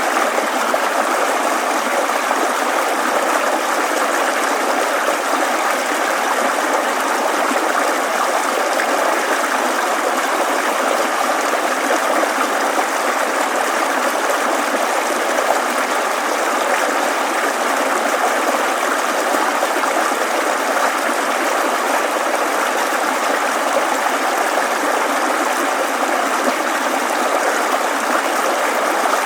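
Babbling stream: water running steadily over stones, an even rushing and trickling.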